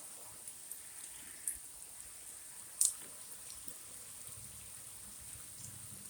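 Heavy rain falling steadily, a constant hiss broken by a few sharp ticks of drops, the loudest about three seconds in.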